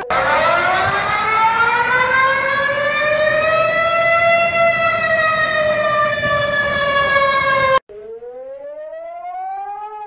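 Emergency warning siren wailing, a slow rise in pitch over about four seconds that levels off and dips a little before cutting off suddenly. A quieter siren then starts, rising in pitch.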